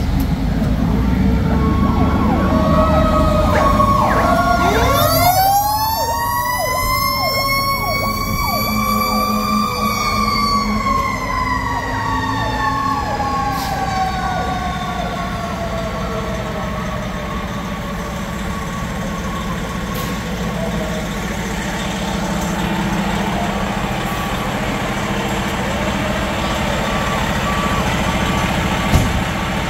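Fire truck siren winding up about five seconds in, peaking a few seconds later and then slowly winding down over the next ten seconds, over the steady running of heavy fire apparatus diesel engines. A single sharp knock sounds near the end.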